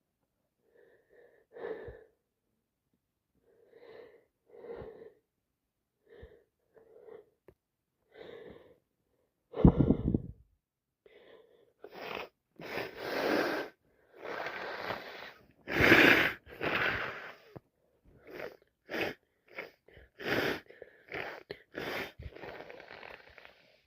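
A woman sneezing again and again from allergies, with wheezy, gasping breaths between the sneezes. Soft short breaths come first, with one sudden loud burst about ten seconds in, then a rapid run of loud sneezes through the second half, the loudest about two-thirds of the way through.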